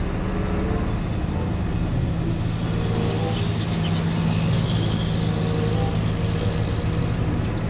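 Water tanker truck's diesel engine running steadily as it drives, with the hiss of water spraying from its rear spray bar.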